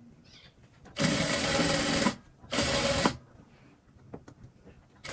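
Sewing machine stitching a seam in two runs: about a second of steady stitching, a short pause, then a brief half-second burst.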